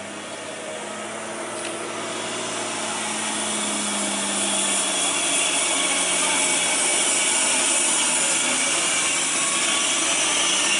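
Diesel engine of a Mitsubishi dump truck passing slowly at close range, a rough steady drone that grows louder over the first several seconds and then holds.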